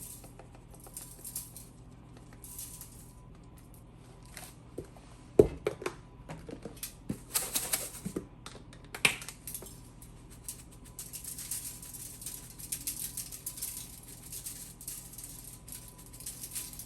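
Salt and pepper being added to a sandwich: scattered clicks and knocks, a couple of them sharp, then several seconds of a fine, rapid rattle.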